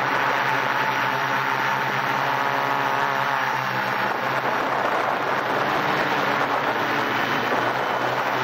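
Quadcopter's electric motors and propellers whirring steadily in flight, heard from just beneath the rotors, over a steady rushing hiss. The motor pitch wavers slightly a few seconds in.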